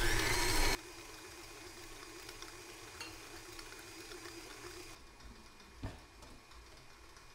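A small electric kitchen appliance motor running as it mixes white sugar and molasses into brown sugar, cutting off suddenly less than a second in. Then a faint steady hum, and one soft knock near the end.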